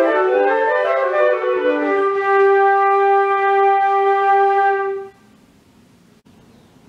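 A trio of concert flutes playing together: moving notes, then a long held chord that all three release together about five seconds in.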